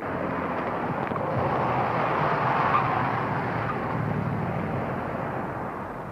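A car driving past, its engine and tyre noise growing louder for about three seconds and then fading as it moves away.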